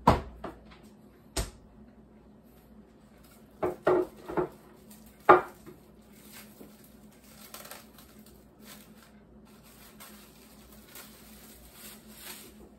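A refrigerator door thuds shut, followed by a smaller knock. A few seconds later a plate and utensils knock against a wooden table, three quick knocks and then a louder one, before light handling rustles as salad is arranged on the plate.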